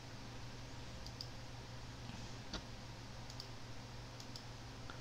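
Faint computer mouse clicks, a handful scattered irregularly with the clearest about two and a half seconds in, over a steady low hum.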